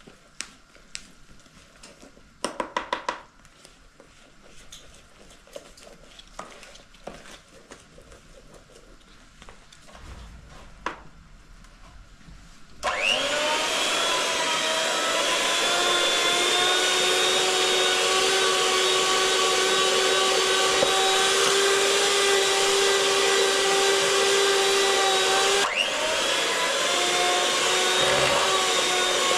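An electric hand mixer switches on about halfway through and runs with a steady motor whine, beating cake batter in a plastic bowl. Near the end it cuts out for a moment and winds back up. Before it starts there are only a few light clicks and a short quick rattle.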